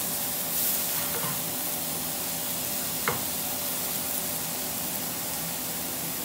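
Steaks and mushrooms sizzling steadily in a hot ridged griddle pan, with a single short knock about three seconds in.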